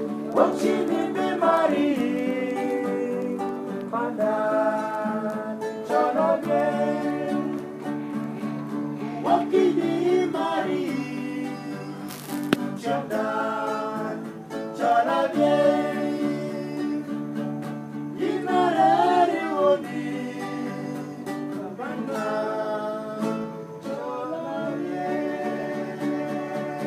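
Men singing a song in phrases to a strummed acoustic guitar.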